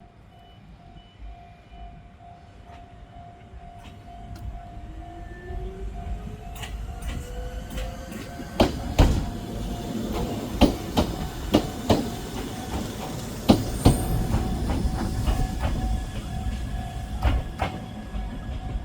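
Fujikyu 1000-series electric train approaching and passing, a rising whine as it nears, then its wheels clacking loudly over the rail joints for about ten seconds from halfway in. A level-crossing bell dings steadily throughout.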